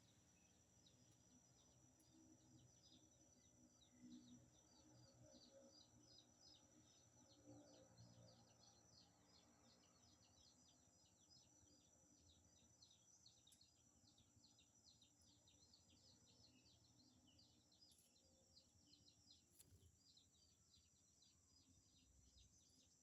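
Very faint outdoor ambience: a high-pitched chirp repeating rapidly, several times a second, throughout, over a steady thin high whine.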